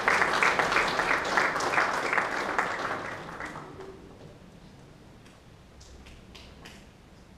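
Audience applause that dies away about three to four seconds in, leaving only a few faint clicks.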